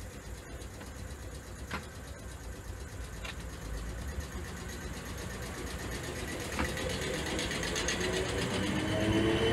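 South Western Railway suburban electric multiple unit pulling away from the platform, its running noise growing steadily louder, with a few sharp clicks from the wheels. Near the end, traction motor whine rises in steps as the train gathers speed.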